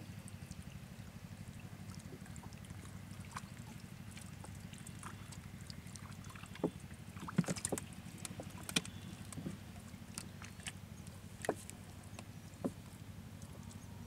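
A wet cast net being hauled in and gathered at the bow of a wooden boat: scattered splashes, drips and sharp knocks against the hull, thickest in the middle and fading out near the end, over a steady low rumble.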